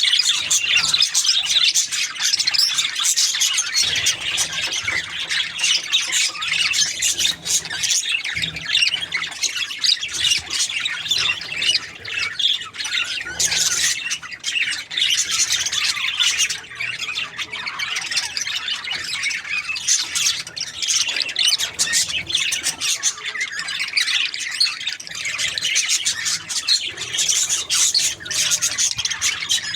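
Budgerigars (budgies) chattering and chirping without pause, many quick high-pitched calls overlapping.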